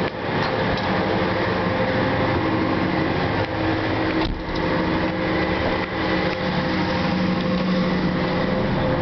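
A fishing boat's engines and machinery running steadily below decks, a constant loud drone with several held hum tones. There is a light knock about four seconds in.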